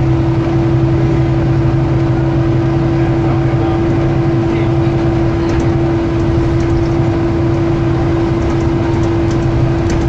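Volvo B9TL double-decker bus heard from inside the saloon while moving, its engine and drivetrain running steadily. A constant vacuum-cleaner-like 'hoover' whine sits over the road and engine noise.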